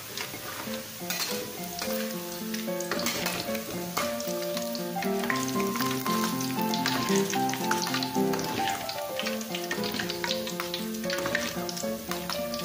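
Thin tempe strips deep-frying in a wok of hot oil, sizzling and crackling steadily as they are stirred and lifted with a perforated metal skimmer. Plucked-string background music plays over it.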